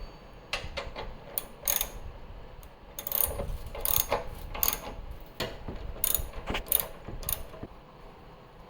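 Hand ratchet (3/8-inch drive) clicking as it tightens the new engine mount's 17 mm nuts and bolts, in short irregular runs of clicks that stop near the end.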